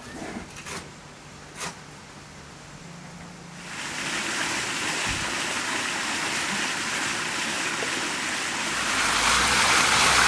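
A trowel scraping wet clay plaster a few times, then from about four seconds in a steady rushing noise that grows louder near the end.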